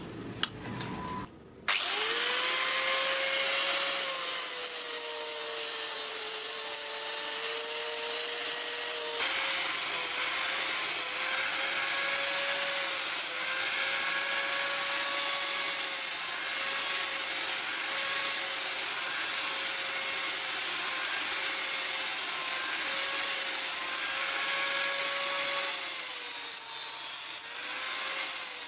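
Angle grinder fitted with a flap disc grinding the steel blade of a hand-forged meat cleaver. A few clicks as the disc is fitted, then the grinder starts up about two seconds in and runs with a steady whine over a grinding hiss, the pitch dipping and recovering several times as the disc is pressed onto the blade.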